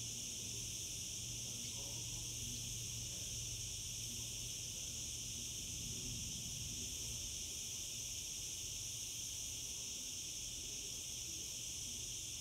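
Steady, unbroken high-pitched drone of a cicada chorus, with a faint steady low hum beneath it.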